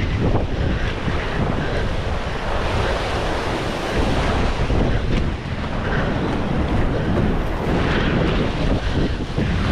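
Ocean waves breaking and washing against a rock shelf, with strong wind buffeting the microphone.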